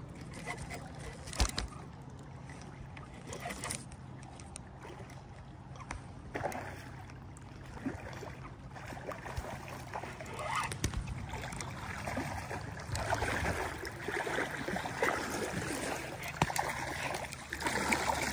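River water sloshing and splashing as a hooked smallmouth bass is played on a spinning rod and drawn into the shallows, busier and louder in the second half.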